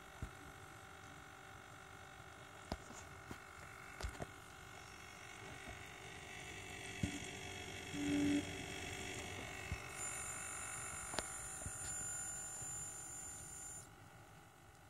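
Corsair H100i GTX all-in-one liquid cooler pump running with a steady whine made of several tones, which the owner attributes to rattling pump bearings, a known defect of the first batch. A higher whine joins about two thirds of the way in and stops shortly before the end, with scattered sharp clicks throughout.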